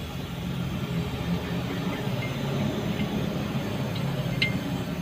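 A steady low engine hum, as of an engine idling, with one short sharp tick about four and a half seconds in.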